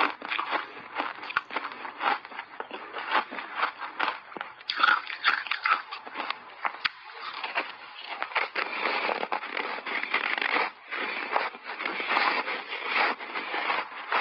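Close-miked crunching and chewing of compacted snowball ice coated in matcha powder: many sharp crackling bites, thickening into denser, steadier crunchy chewing from about halfway through.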